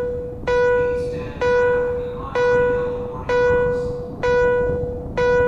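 Subway platform passing-train warning chime of the Toei type: one bell-like electronic note repeated about once a second, six times, each strike dying away before the next. It signals that a train is about to run through the station without stopping.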